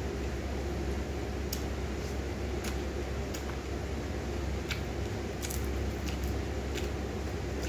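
Eating by hand: a few soft, scattered clicks and crackles from fresh arugula leaves, rice and fried fish being picked up and chewed, over a steady low hum.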